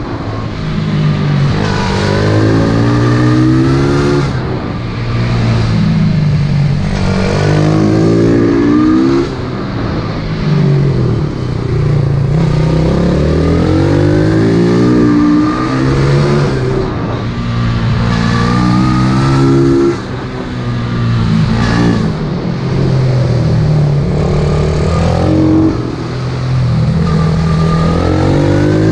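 Pit bike engine revving hard around a lap, its pitch climbing again and again through the gears and falling back when the throttle closes for the corners, with brief lifts near 10, 20 and 26 seconds.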